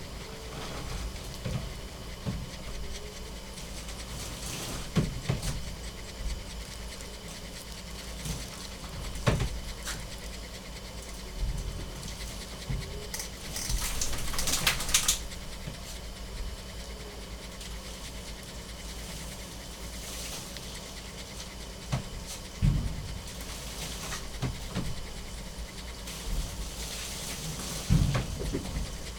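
A dog panting, with scattered short knocks and a louder scraping rustle about halfway through.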